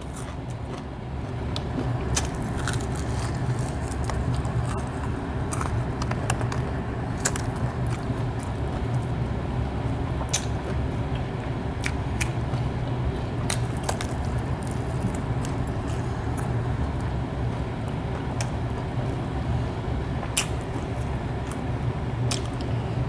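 Someone eating fried chicken, chewing and biting with sharp scattered clicks, over a steady low rumble.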